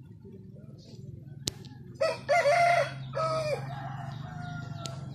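A rooster crowing: a crow of several linked notes beginning about two seconds in, its last note held long and fading away.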